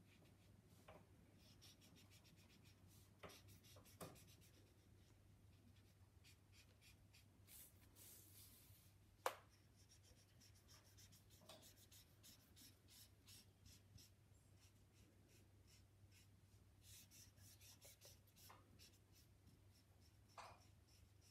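Faint scratching of a felt-tip marker colouring in on paper in quick back-and-forth strokes, with a few soft taps and one sharper tap about nine seconds in, over a low steady hum.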